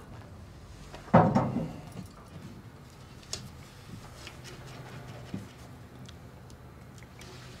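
One heavy thud about a second in that fades over half a second, then a quiet low room hum broken by a few faint clicks.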